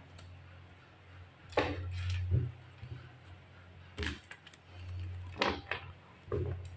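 Tarot cards being handled and shuffled by hand: a scattering of sharp clicks and taps as the cards and deck knock together, over a steady low hum.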